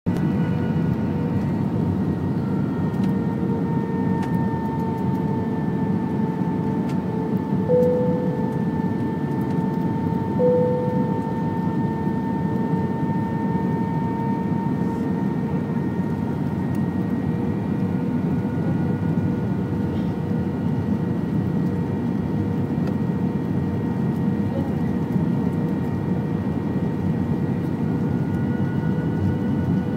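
Jet airliner cabin noise at a window seat over the wing on approach: a steady rumble of engine and airflow with a steady engine whine. Two brief louder tones come about eight and ten seconds in.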